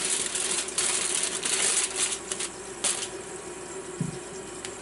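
Aluminum foil crinkling and crackling as it is folded and pressed down by hand into a tight wrap. It is busiest for the first three seconds, with a sharp crackle just before the three-second mark, then quieter. A steady hum runs underneath.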